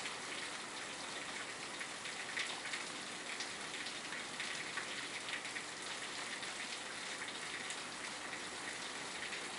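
Heavy rain falling steadily on pavement and yard: an even hiss with a dense patter of individual drops.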